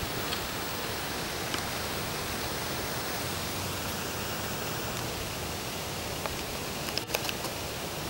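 Steady, even outdoor hiss with a few faint clicks, the clearest a couple about seven seconds in.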